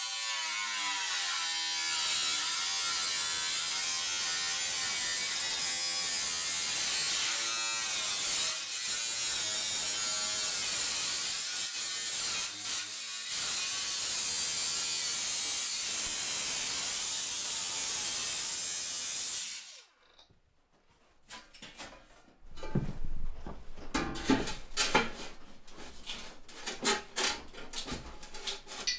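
Angle grinder sanding rust off an old steel stovepipe, running steadily, then cutting off about two-thirds of the way through. After a short pause comes a run of knocks and clatters as steel stovepipe sections and an elbow are handled and fitted together.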